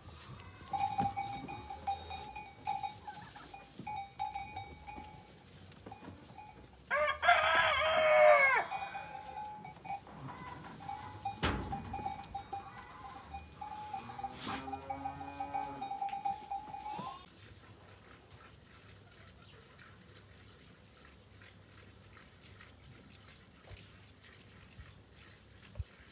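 A rooster crows loudly about seven seconds in, and a sheep bleats once about halfway through. A faint steady high tone runs beneath both and stops a little past halfway.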